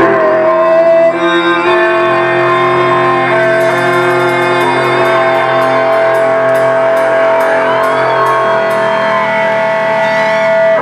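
Live rock band: an electric guitar chord held and left to ring as a steady sustained sound, with light cymbal taps about twice a second through the middle.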